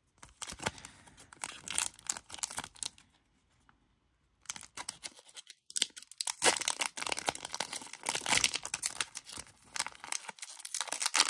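Plastic trading-card pack wrapper being torn open and crinkled by hand: two spells of dense crackling, split by a pause of about a second a little over three seconds in, the second spell louder.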